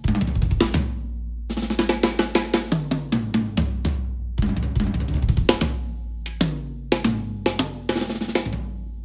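DW Collector's Series Pure Oak drum kit being played: runs of quick fills that step down the toms, over bass drum hits and with snare and cymbals.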